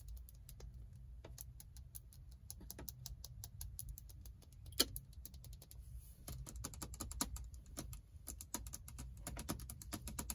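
Fingernails tapping on a car's round shift knob and dashboard touchscreen stereo, sparse at first, then quick and dense from about six seconds in, with one sharper tap near the middle.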